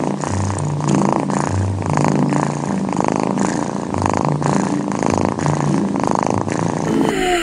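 Domestic cat purring steadily up close, the purr swelling and fading about once a second as it breathes in and out.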